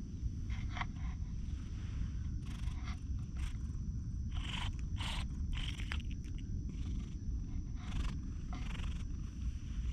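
Grey-and-white cat purring close to the microphone, a continuous low rumble, with short scratchy rustles again and again as its head and fur brush against the camera.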